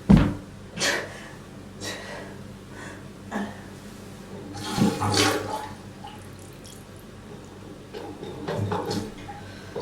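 A person retching and burping in a small room, in about half a dozen short heaves and belches. The longest and loudest comes about five seconds in. These are dry heaves that bring up mostly burps.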